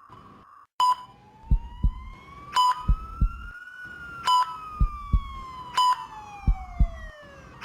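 Simulated ICU patient-monitor sound effect: a short high beep about every second and a half, each followed by a double heartbeat thump, four of each. Over it a single tone rises slowly for about three seconds, then falls away, like a siren.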